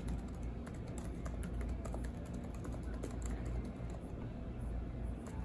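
Fast typing on the Acer 311 Chromebook's keyboard: a continuous run of quick key clicks.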